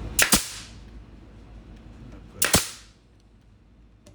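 Nail gun firing three times, driving nails into a glued wooden joint: two shots in quick succession, then a third about two seconds later.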